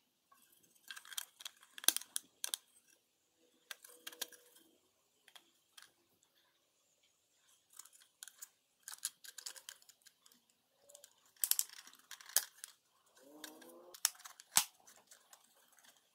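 3D-printed plastic parts being handled and fitted together: scattered clicks, taps and light scraping of hard plastic. Near the end a piece squeaks briefly as it is pushed into place, followed by one sharp click.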